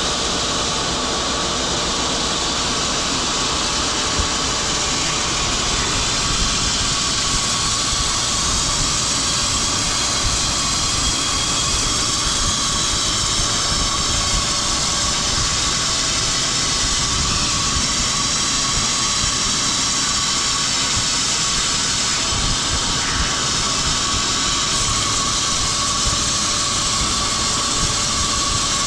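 Woodworking machinery running steadily: a continuous loud mechanical noise with a constant high hum.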